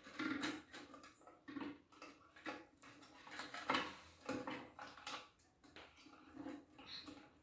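Irregular light clicks and knocks of hands working the plastic fittings of a toilet fill valve under the tank, tightening a connection.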